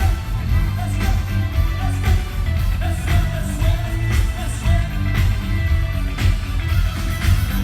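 Rock music with singing, a heavy bass and a steady beat.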